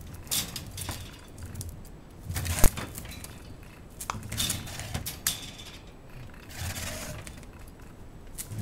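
Shiba Inu puppies scuffling in a wire playpen: scattered clicks and taps of paws and claws on the plastic floor mat, light rattles of the wire panels and dull thumps, with one sharp knock a little under three seconds in.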